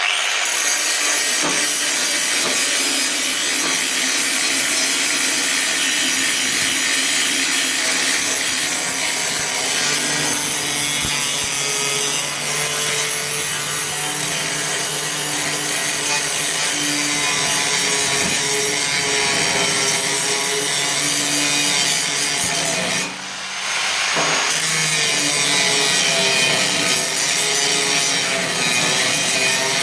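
Angle grinder grinding down a fresh weld on a car's front body metal: a loud, steady grinding rasp, with a short drop about 23 seconds in as the disc comes off the metal and spins back up before grinding again.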